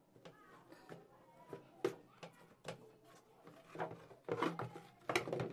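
Light knocks and clatters of things being handled on a kitchen work surface: a string of short sharp clicks, coming closer together in the second half.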